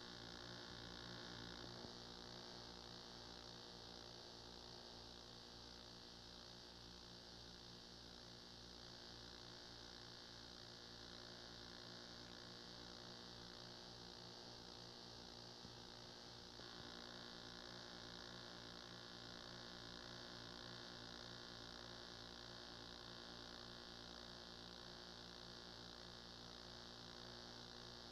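Near silence: a steady electrical hum with a faint hiss on an otherwise silent game-film soundtrack, shifting slightly in tone about two seconds in and again a little past halfway.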